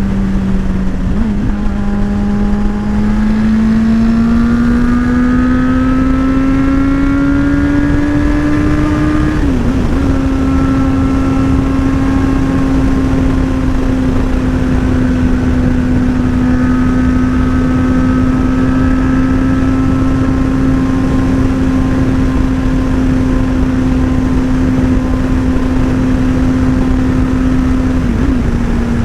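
Motorcycle engine running under way, its pitch climbing slowly for several seconds, dipping and wobbling briefly about ten seconds in, then holding a steady cruise. A steady rushing noise runs underneath.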